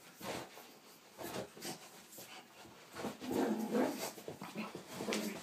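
A pug's quick, irregular breaths and short noises as it lunges at and backs away from a small toy, with a louder low vocal sound from the dog lasting about a second, starting about three seconds in.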